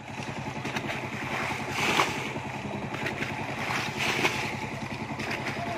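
Water splashing as a scoop throws it out of a muddy ditch, in bursts about every two seconds, over the steady chugging of a small engine running.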